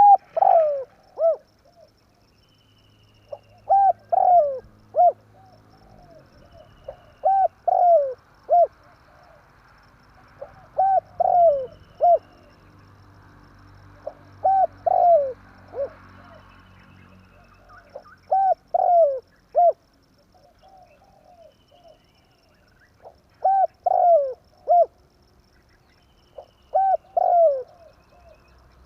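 Spotted dove cooing: a phrase of three or four short coos, each falling in pitch, repeated about every three and a half seconds.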